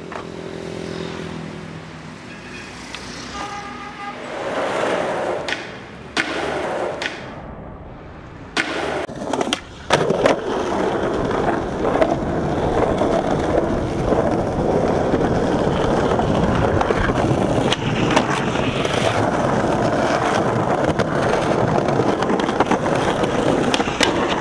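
Skateboard wheels rolling on pavement: a steady rumble that gets much louder about ten seconds in. Several sharp clacks of the board striking the ground come mostly in the first half.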